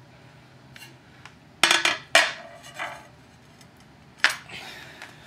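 Three sharp clinks of something hard being handled, each with a short ring: two about half a second apart a second and a half in, and a third about four seconds in.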